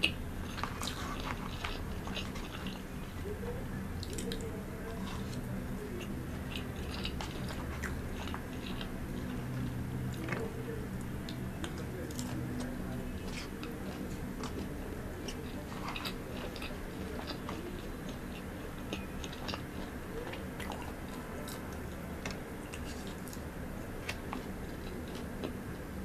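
Close-miked chewing of a mouthful of KFC popcorn chicken rice bowl, with soft crunches and scattered mouth clicks over a steady low hum.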